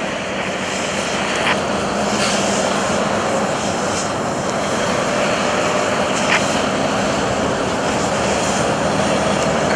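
Fire hose nozzle hissing as it sprays foam onto a semi-trailer's burnt wheels, over the steady drone of a running engine. A few faint clicks.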